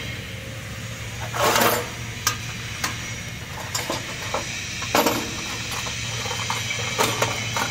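Scattered sharp metallic clinks and knocks on a steel shell lined with welded anchors, the loudest a short clatter about a second and a half in and another about five seconds in, over a steady low machine hum.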